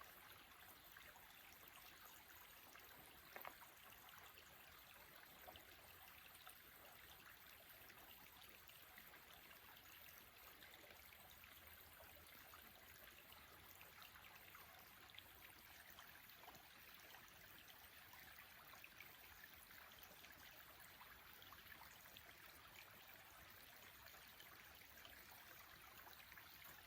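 Near silence: a faint steady hiss, with a small click about three and a half seconds in.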